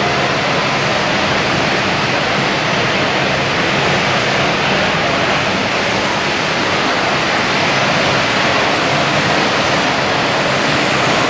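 Steady, even rushing background noise of a large exhibition hall, with no rhythm or distinct events.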